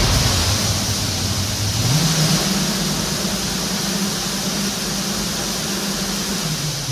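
Brushless hoverboard hub motors in 3D-printed mecanum wheels driving across a hardwood floor: a low motor hum that steps up in pitch about two seconds in as the rover speeds up, then holds, over a steady rolling noise from the wheels.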